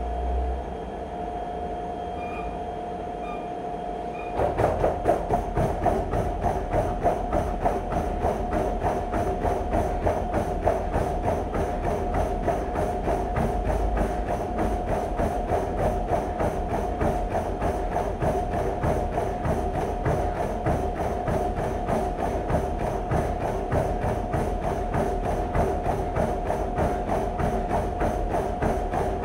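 Treadmill running with a steady motor whine. About four seconds in, sprinting footfalls start landing on the moving belt in a fast, even rhythm that keeps going.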